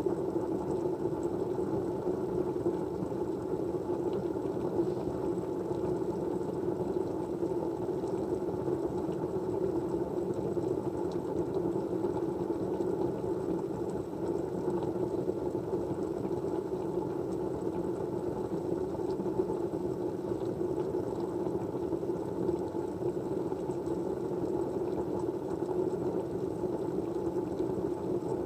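Steady low, muffled white-noise hiss without a break, like a fan or a white-noise track, with faint small ticks above it.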